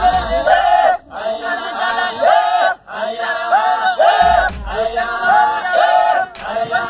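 Maasai group chanting for the adumu jumping dance: many voices repeating a short rising-and-falling phrase over and over, with brief breaks between phrases.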